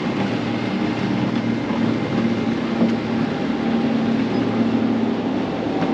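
Steady low motor hum on a small boat on open water, over a constant wash of wind and water noise.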